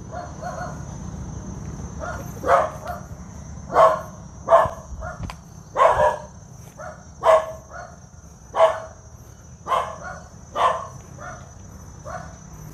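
A dog barking over and over, about one to two barks a second, starting a couple of seconds in.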